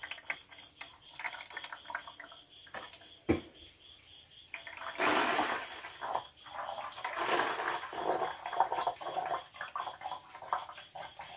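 Fermented fruit juice being strained: liquid pouring and trickling through a mesh cloth and plastic funnel into a plastic bottle, in two longer rushes partway through, with wet fruit pulp squeezed in the cloth and small handling clicks. A sharp knock comes about three seconds in.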